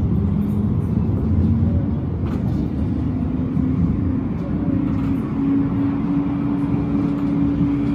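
Electric tram under way, heard from inside: a low rumble of wheels on rail with a motor whine that rises in pitch over the first few seconds as the tram picks up speed, then holds steady.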